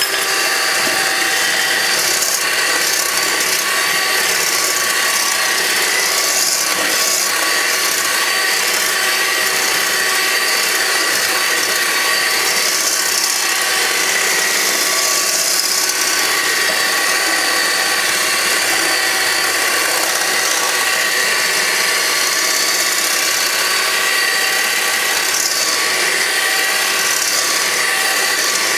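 Electric hand mixer running steadily, its beaters whipping egg whites with sugar in a stainless steel bowl. This is the last stage of beating the whites to firm peaks. The motor gives a constant whine with several steady pitches.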